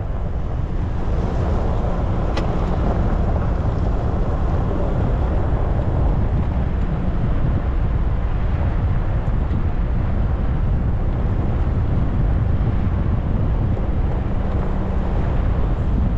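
Toyota Hilux pickup driving along a gravel track: a steady rumble of wind on an outside-mounted microphone and tyre noise on the gravel, with a low drone that fades out a few seconds in and returns near the end.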